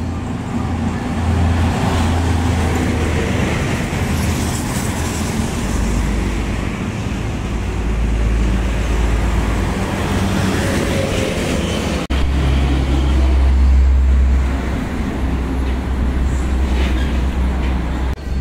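Road traffic passing close by, cars, trucks and motorbikes, as a heavy low rumble. The sound changes abruptly about twelve seconds in.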